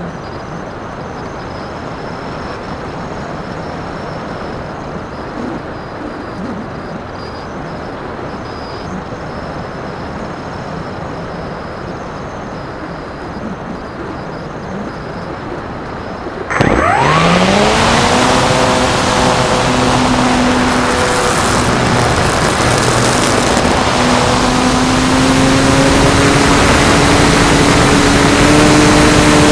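Steady airflow noise from a Phoenix 2000 electric glider in flight with the motor off. About two-thirds of the way in, its brushless motor spins up with a quickly rising whine, then runs steadily and louder, its pitch creeping higher near the end.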